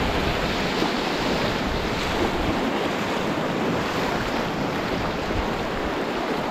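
Steady rush of whitewater in a river rapid, with wind buffeting the microphone in a low rumble.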